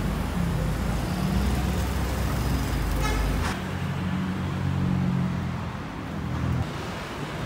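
City road traffic passing: car and bus engines running by close at hand, with a brief high-pitched tone about three seconds in. The engine rumble eases a little after about three and a half seconds.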